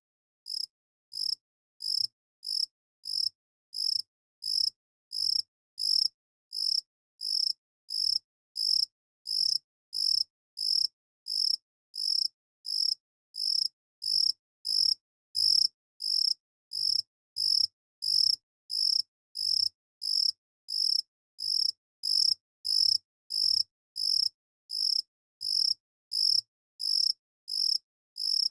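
Cricket chirping in a steady, even rhythm, about three short high-pitched chirps every two seconds, with dead silence between chirps.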